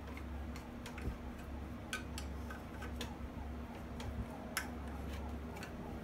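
Sharp clicks and taps, irregular and about one a second, from hands handling a bench grinder, over a steady low hum.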